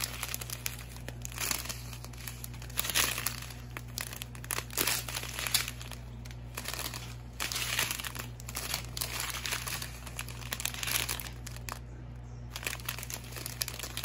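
Clear plastic packets of diamond-painting drills crinkling in irregular bursts as they are handled and turned over, over a faint steady low hum.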